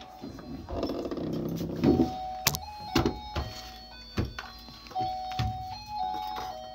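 A simple electronic melody of single steady notes stepping from pitch to pitch, with several sharp knocks and thumps from handling, and a louder noisy stretch about a second in.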